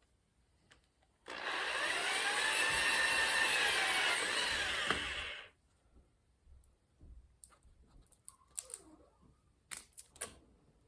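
An electric power tool motor runs for about four seconds, its whine rising as it spins up and falling as it winds down, during copper wire stripping. A few light clicks and knocks of handling follow.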